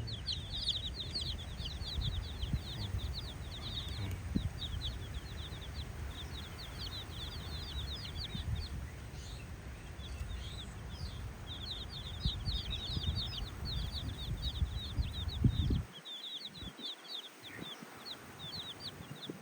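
A brood of baby chicks peeping: many rapid, short, high chirps falling in pitch, in busy runs with a thinner stretch midway. A low rumbling noise runs underneath and stops about sixteen seconds in.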